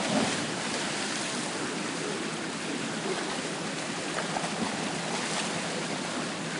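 Swimmer's dive splashing into a pool right at the start, then steady splashing water from front-crawl strokes.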